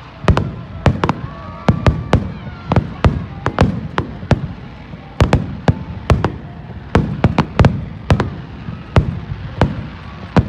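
Fireworks bursting in quick succession: a long string of sharp bangs, irregularly spaced and at times several a second.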